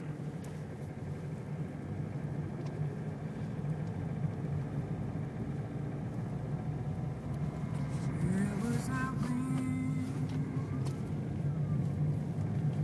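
Steady low engine and tyre hum of a car driving on a packed-snow road, heard inside the cabin, growing slightly louder. A few brief pitched sounds come in about eight seconds in.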